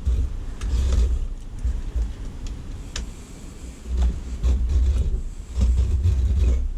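Razor knife shaving thin slivers off the edge of a wooden window frame in short scraping strokes, over a low rumble that comes and goes.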